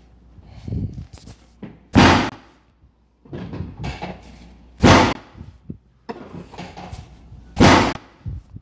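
Chiropractic drop table thrusts: three loud, sharp thuds about three seconds apart as the padded table section drops under the chiropractor's push.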